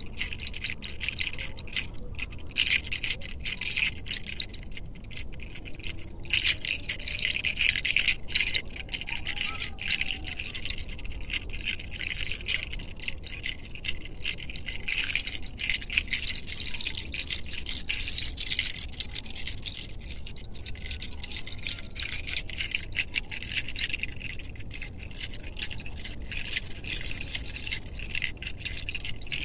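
Fingertips rubbing through hair on the scalp in a head massage: a steady, scratchy rustle of many fine strokes that swells and eases, over a low wind rumble.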